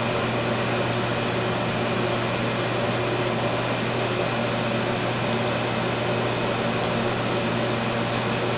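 Steady machine hum with an even hiss, unchanging throughout, with a few faint ticks.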